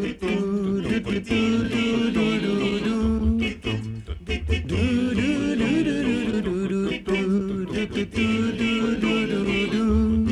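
Male a cappella group singing in close harmony, with chords held over a low bass voice.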